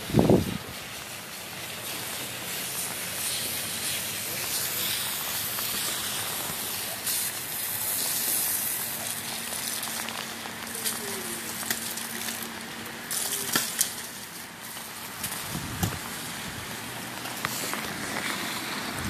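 Heavy tropical rain falling, a steady hiss with crackling patter.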